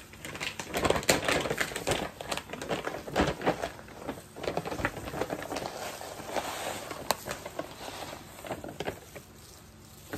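A large plastic bag of desiccated coconut crinkling and rustling as it is handled and tipped, with the dry shreds pattering into a bowl.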